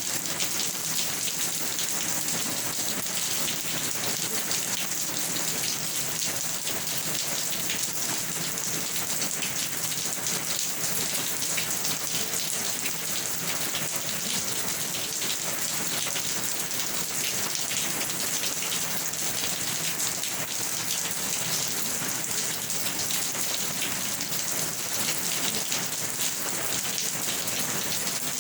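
Steady rain falling on a surface, a dense hiss of many small drop impacts.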